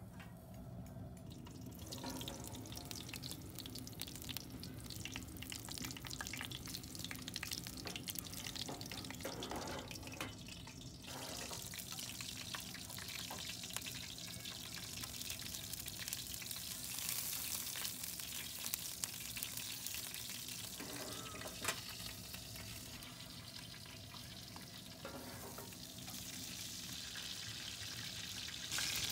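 Thick slices of meat sizzling and crackling in a stainless steel tray inside a rocket stove's oven, with a few sharp clicks of tongs against the tray.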